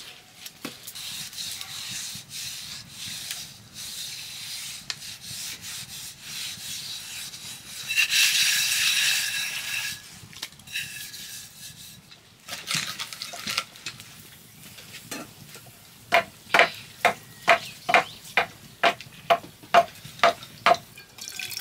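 Hand scrubbing a wet ash paste over the bottom of an aluminium pressure cooker, a soft uneven rubbing, louder for a couple of seconds midway. Near the end comes a run of about a dozen sharp, evenly spaced knocks, about two a second, louder than the rubbing.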